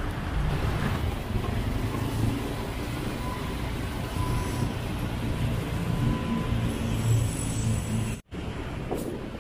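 Street traffic passing close by, a motorcycle and a car among it, their engines and tyres making a steady noise. The sound drops out for a moment near the end.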